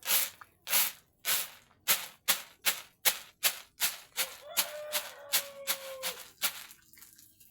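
Rhythmic rattling of dry grain being shaken and tossed to sort it, separating the unwanted bits from the good ones. The strokes come about twice a second and quicken towards the middle. A faint wavering tone, like a voice, sounds for a couple of seconds past the middle.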